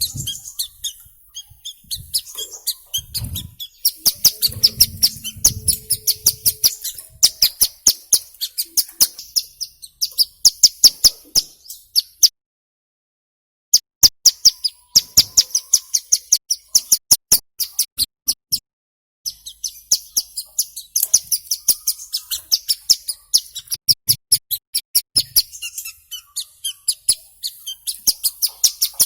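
A female ciblek gunung (a mountain prinia) calling in a rapid run of sharp, high chirps, several a second. There is a sudden silent break of about a second and a half near the middle.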